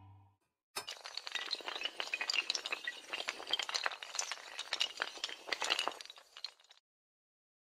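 Sound effect of many small hard tiles clattering down like toppling dominoes: a dense run of clicks and clinks that starts sharply about a second in and stops abruptly near the end.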